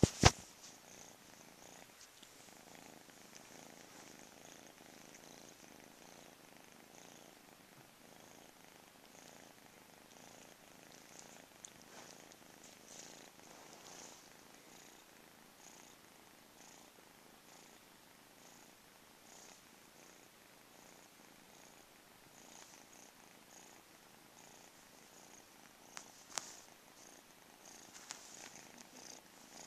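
Domestic cat purring close to the microphone, a soft steady purr that swells and eases about once a second with each breath. A sharp knock right at the start, and a smaller one about 26 seconds in.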